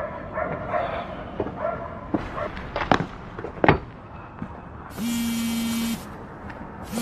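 A mobile phone buzzing twice with a steady single-pitched tone, each buzz about a second long and a second apart: an incoming call. Before it come short high whines and a few sharp knocks.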